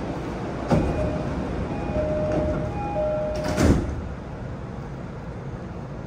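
Passenger doors of an E233 series commuter train closing at a station stop: a knock about a second in, a chime of alternating tones while the doors slide, and a heavy thud as they shut, after which the car's low hum goes on.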